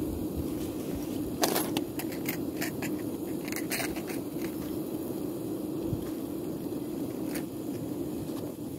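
Steady roar of a remote-canister gas camping stove burning under a steaming pan. A run of sharp clicks and clinks comes between about one and a half and four seconds in, and another single click near the end.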